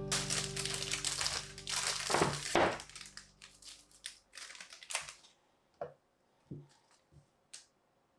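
Kitchen handling sounds: a stretch of crunching and crinkling over the first three seconds, then a few separate light knocks and clicks. Background music fades out under the crunching.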